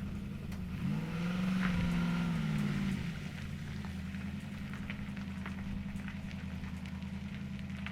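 Machine engine running steadily, with a brief swell and bend in pitch lasting about two seconds near the start, and faint scattered clicks over it.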